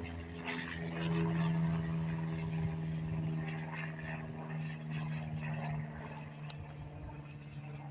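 An airplane flying past: a steady engine drone that is loudest about a second in and slowly fades.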